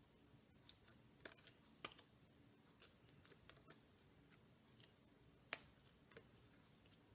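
Near silence with faint, scattered clicks and flicks of card-stock flashcards being handled and swapped one after another, the sharpest about five and a half seconds in.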